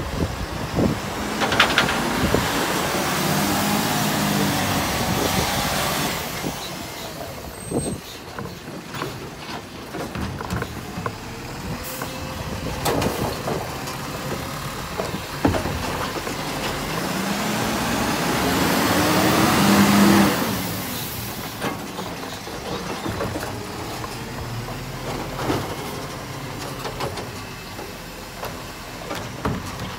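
Iveco side-loader garbage truck emptying recycling wheelie bins with its hydraulic arm: twice the engine and hydraulics rise in pitch as the arm lifts, then drop away, with knocks and clatter as bins are tipped and set back down.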